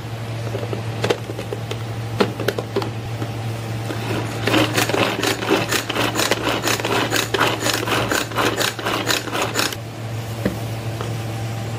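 Hand-pulled string chopper being yanked over and over, its spinning blades rattling through roasted onion, garlic and green chillies in the plastic bowl, about four pulls a second for some five seconds from about four seconds in. A few sharp clicks come before it as the lid is pressed on, and a steady low hum runs underneath.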